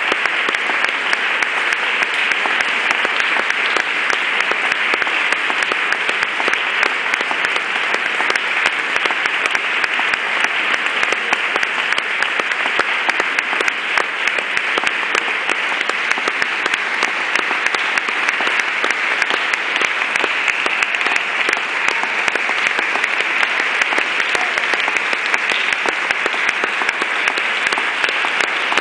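Concert audience applauding steadily, many hands clapping at once.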